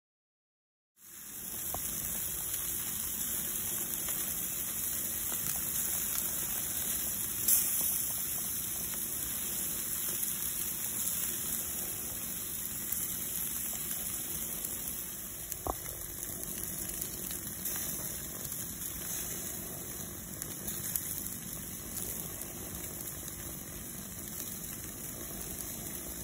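Veal entrecôte steaks sizzling on hot grill grates: a steady hiss that starts about a second in, with a few sharp pops.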